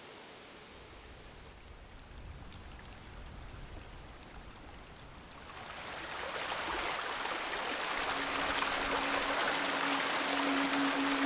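A small tundra stream's running water fades in a little past halfway and grows steadily louder, following a quiet stretch with a faint low rumble. A steady low musical note enters about two-thirds of the way through.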